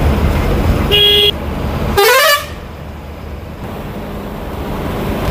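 Low rumble of a bus on the road. A vehicle horn honks twice: a short steady honk about a second in, then a louder honk that rises in pitch about two seconds in. After the second honk the rumble drops off and it goes quieter.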